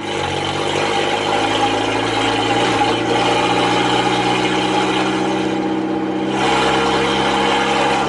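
GAZelle Farmer light truck's engine running steadily as the truck drives. The truck moves in jerks, which the owner puts down to the engine sagging in revs once under way.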